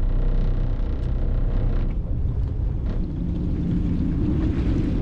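Charter fishing boat's engine running at sea, a steady low drone; its tone thickens slightly about three seconds in.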